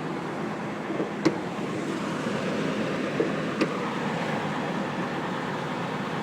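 A 2003 Ford Explorer's 4.0-litre V6 idling steadily, just started after a rear timing chain tensioner and cassette replacement and running a little rough. Two sharp clicks sound over it, about a second in and again past three and a half seconds.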